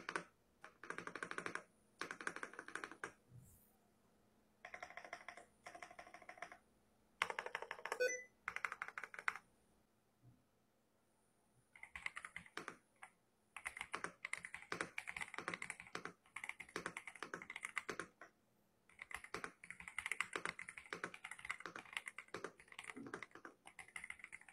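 Monka 3067 gasket-mount mechanical keyboard with linear switches being typed on. There are several short bursts of rapid keystrokes in the first ten seconds, then longer stretches of typing from about twelve seconds on, broken by a couple of brief pauses.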